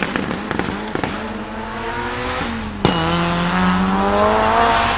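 Performance car's exhaust crackling at first, then the engine pulling with revs climbing steadily. About three seconds in a sharp crack comes as the revs drop at an upshift, and they climb again in the next gear.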